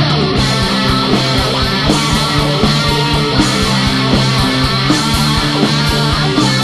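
Instrumental rock music: distorted electric guitars over bass and a fast drum beat, no vocals.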